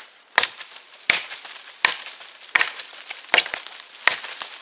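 Heavy, forward-weighted TOPS Tom Brown Tracker knife chopping into a thin dead, dry trunk. Six sharp blade strikes come at an even pace, about three-quarters of a second apart.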